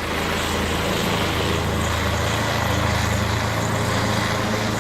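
Low-flying helicopter passing overhead: a steady drone of rotor and engine with a strong low hum.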